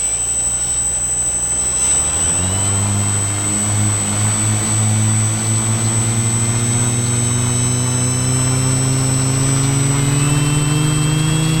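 F450 quadcopter's electric motors and propellers humming. The pitch steps up about two seconds in, then keeps rising slowly, with a thin high whine above.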